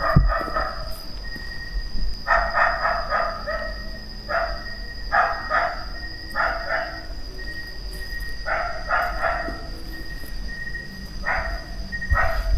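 A dog barking in repeated bouts of a few quick barks, about every one to two seconds.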